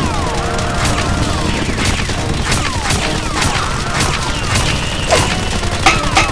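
Gunfight sound effects for a toy-blaster battle: an irregular string of sharp shots, about two a second, many trailed by a falling whizz, over a steady low rumble. The loudest shot comes near the end.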